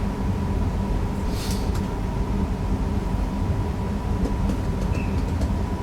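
Steady electrical and mechanical hum inside the driver's cab of a Newag Impuls EN63 electric multiple unit, with a thin steady whine over it and a brief hiss about a second and a half in.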